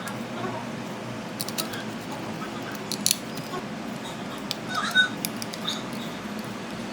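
A few light, sharp clicks and taps over a steady low background hum.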